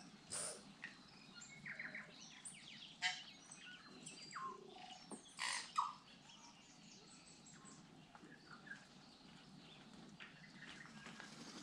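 Birds calling and singing: scattered chirps and short whistled notes of varied pitch, with a few louder calls about half a second in, at about three seconds and around five and a half seconds.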